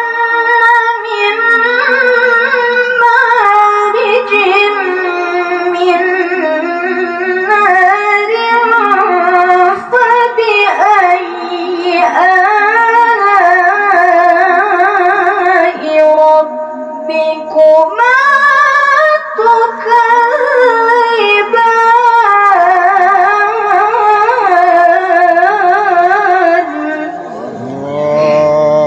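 A woman's voice chanting Qur'anic recitation (tilawah) into a microphone, in long melismatic phrases with wavering, ornamented held notes, in a melody styled after Javanese sinden singing. The phrase fades and breaks off near the end.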